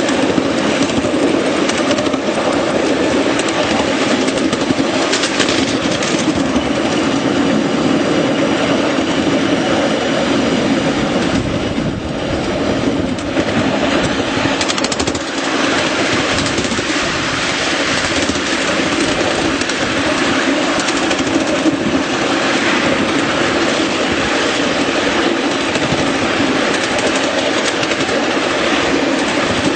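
Miniature railway train running along the track, heard from on board: a steady rumble and rattle of small wheels on the rails, with clickety-clack over the joints. The sound dips briefly about halfway through.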